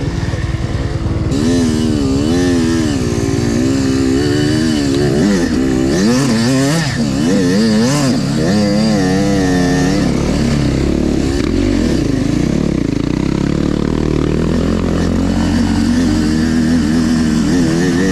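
Off-road dirt bike engine being ridden on a trail, its pitch rising and falling over and over with the throttle for the first ten seconds or so, then running steadier.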